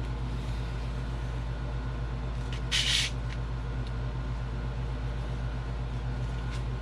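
A finger blade cutting through chipboard around a template: faint scratches and one short, sharp scrape about three seconds in. Under it runs a steady low electrical hum.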